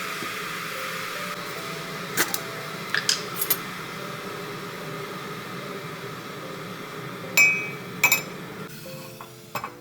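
A coffee-making appliance runs with a steady whir that stops near the end, while crockery clinks sharply several times, one clink ringing briefly. Soft music plays underneath.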